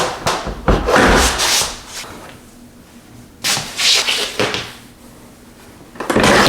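Rustling and scraping handling noise in several bursts, with short quiet gaps between them.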